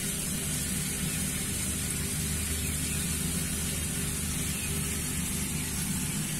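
Steady, even hiss with a low hum underneath, unchanging and with no distinct events.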